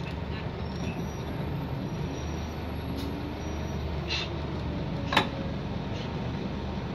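Running noise inside a Scania K230UB single-deck bus on the move: a steady low engine and road hum, with one sharp click a little over five seconds in.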